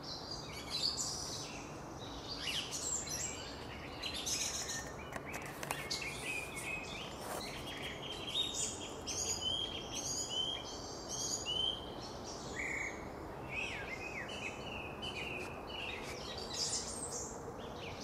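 Evening chorus of several songbirds: many short whistled phrases and chirps overlapping without pause, over a faint steady background noise.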